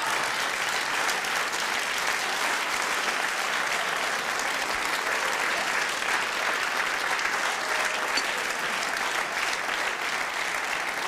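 Studio audience applauding steadily after a punchline, with some laughter and cheering mixed in.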